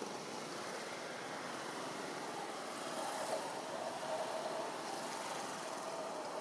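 Steady outdoor background noise, a hiss like wind or distant traffic, with a faint steady hum joining about halfway through.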